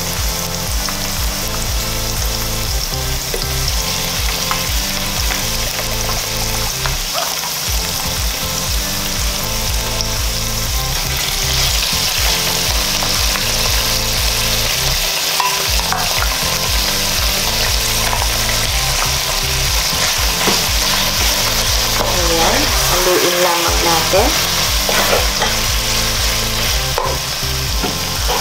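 Marinated pork strips sizzling in hot oil with sautéed garlic and onion in a nonstick pot. The sizzle is steady and grows louder about a third of the way in. A spatula stirs and scrapes the meat in the later part.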